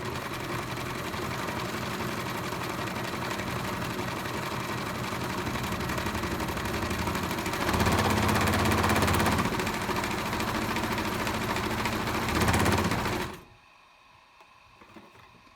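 Singer 5137 sewing machine with all-metal gears running steadily, stitching a dense decorative stitch at a very short stitch length. It gets louder about eight seconds in and again briefly near the end, then stops about two seconds before the end.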